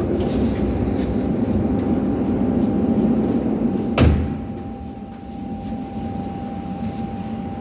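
Inside a metro car standing at a station: a steady low rumble, broken about four seconds in by a single loud clunk, after which the rumble drops to a quieter hum with a faint steady tone.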